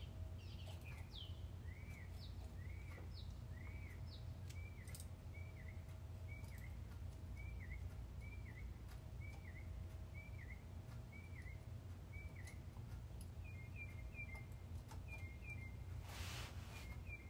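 A small songbird calling outside, repeating a short arched whistle over and over, a bit under twice a second, then switching to a few quick sharp chirps. There is a low steady hum underneath and a brief burst of noise near the end.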